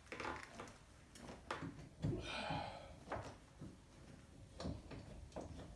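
Faint, scattered clicks and knocks of hand tools on metal as the Jeep door's hinge bolts are tightened, with a brief scraping rub about two seconds in.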